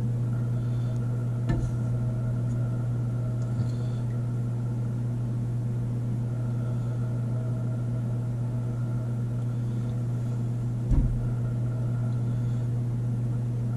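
Steady low electrical hum from a kitchen appliance, with a few light knocks and a louder thump about eleven seconds in.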